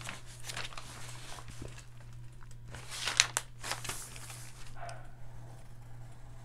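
Paper-backed fusible web sheet rustling and crinkling in short bursts as it is handled and shifted on the table, loudest about three seconds in, with light pencil scratching on the paper.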